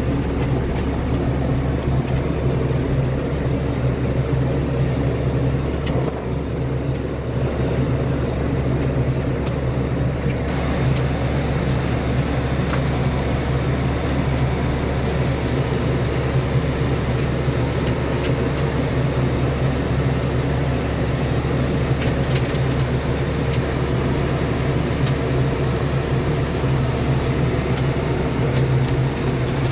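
Challenger tractor's diesel engine running steadily under load as it pulls a hay rake, heard from inside the cab.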